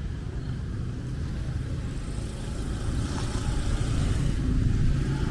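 Motor vehicle engine running in street traffic, a steady low rumble that grows a little louder near the end.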